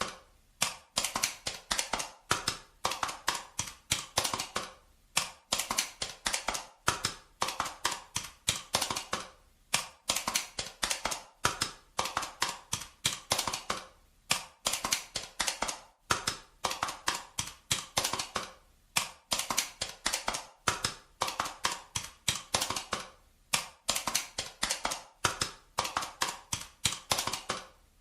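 Calculator buttons being pressed in quick runs of sharp plastic clicks, several a second, broken by short pauses.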